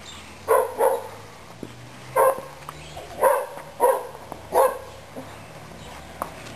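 A dog barking, about six short barks over four seconds, the first two in a quick pair.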